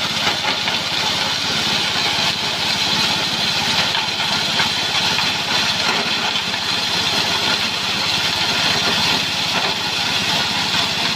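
Grass chopper machine driven by a small single-cylinder petrol engine, running steadily and loudly while grass stalks are fed into its hopper and chopped.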